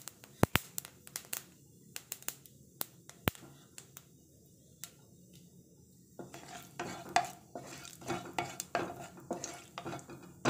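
Wooden spatula stirring and scraping cumin seeds frying in hot oil in a kadai, with a light sizzle and scattered sharp clicks against the pan. The stirring gets busier from about six seconds in.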